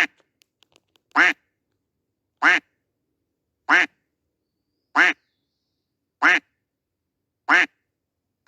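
Duck-quack sound effect played on a loop: the same short quack repeats identically about every 1.25 seconds, around seven times.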